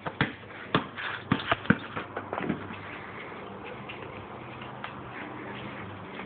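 Dog pawing at and knocking a basketball: about half a dozen sharp knocks and taps in the first two and a half seconds, then only a steady low hum.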